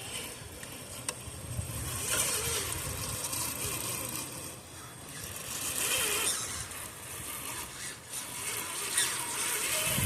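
Electric motor and geared drivetrain of a Traxxas TRX-4 RC rock crawler whining in three spurts of throttle as it crawls over rocks, each swell rising and falling.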